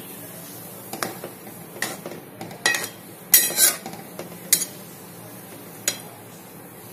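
A spatula stirring a thin gravy in a metal kadhai, knocking and scraping against the pan in several short, separate strokes. The loudest and longest scrape comes about three and a half seconds in.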